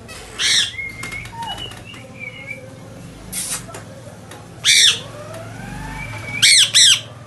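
Pet parrot squawking and whistling: four loud harsh squawks, one about half a second in, one past the middle and two in quick succession near the end, with short whistled notes and a rising whistle between them.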